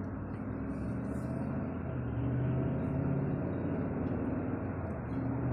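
Car engine running steadily with road noise while driving, heard from inside the car; it grows a little louder about two seconds in.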